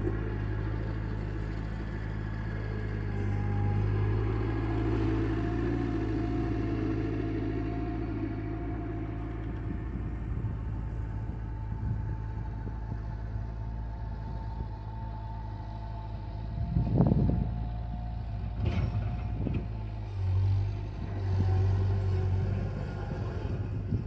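Bobcat 751 skid steer's diesel engine running steadily while it pushes snow with its bucket. About two thirds of the way through there is one loud thump, then two lighter knocks, and the engine grows louder near the end.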